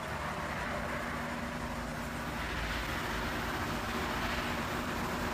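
Steady outdoor background noise, an even wash with a faint low hum underneath.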